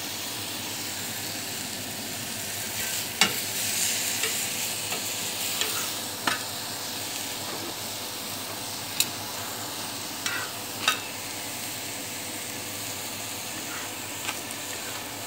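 Layered daun paratha and seekh kebabs sizzling steadily on a hot griddle (tawa). A few sharp taps cut through the sizzle, the loudest about three seconds in.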